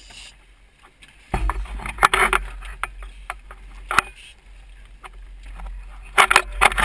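Wind and water noise aboard an inflatable dive boat rocking on the swell, with a low rumble from about a second in and several sharp knocks and thumps.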